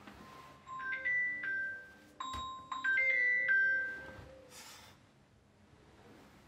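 Mobile phone ringtone: a short melody of clear pitched notes, heard in two phrases, the second longer than the first.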